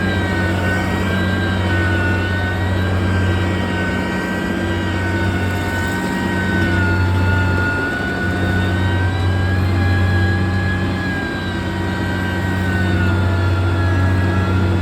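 Heavy road-construction machine's engine running steadily, with a deep hum and a high whine that wavers slightly in pitch as the engine speed changes.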